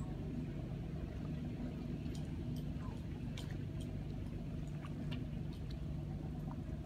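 An engine running steadily with a low, even hum, with a few faint scattered clicks.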